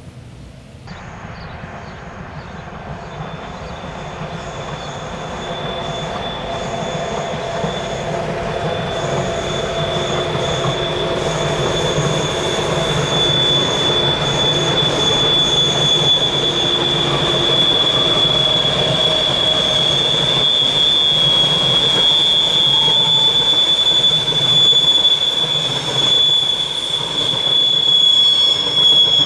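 Car-carrier train (Autoreisezug) running through a tight curve, its wheels squealing on the rails in one high, steady tone over the low rolling noise of the wagons. The sound begins about a second in and grows steadily louder as the train nears.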